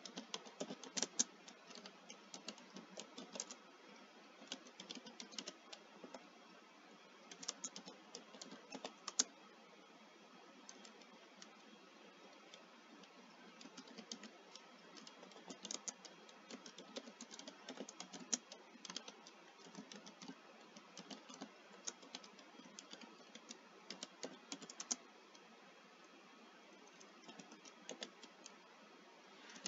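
Typing on a computer keyboard: quick runs of keystrokes in bursts, broken by pauses of a few seconds.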